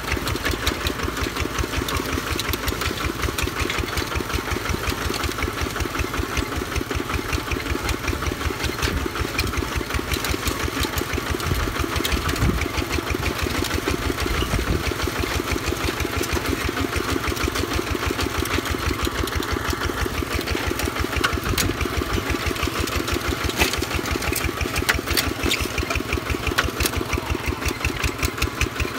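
Single-cylinder engine of a two-wheel walking tractor running steadily with a fast, even chugging pulse as it pulls a disc plough through dry field soil.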